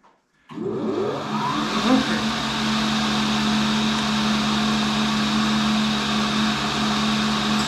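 Tool and cutter grinder switched on: its motor and abrasive wheel spin up with a rising pitch about half a second in, then run at speed with a steady hum and hiss.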